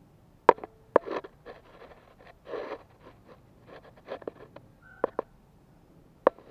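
Scattered sharp clicks and taps with a short scrape, the handling noise of tools and equipment being moved around under the car's engine.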